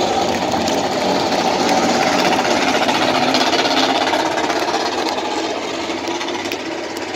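MotoGP racing motorcycle engines running with a dense, rapid rattling note that holds fairly steady and eases slightly near the end.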